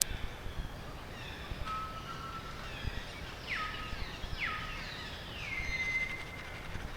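Birds calling in forest: a few clear whistled notes, several sliding quickly down in pitch and then holding level, the last one held longest, over a faint steady hiss.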